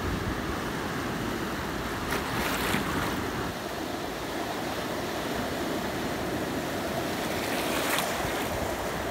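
Small sea waves washing in over the shallows around bare feet, a steady hiss of surf. It swells with foamy surges about two seconds in and again near the end.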